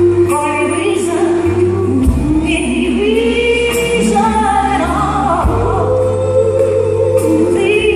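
Live soul ballad: a woman singing long, gliding held notes into a microphone over a band with sustained bass notes, guitar, keyboards and drums, heard from the audience in a concert hall.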